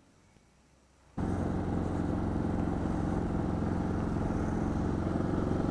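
About a second of near silence, then the single-cylinder engine of a KTM 690 Duke motorcycle running steadily under way.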